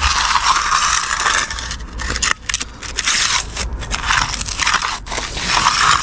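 Marshalltown steel gauging trowel scraping across the surface of firming wet concrete: a gritty scrape in several strokes of a second or two each, working out the tamp marks and drawing the cream up for the final finish.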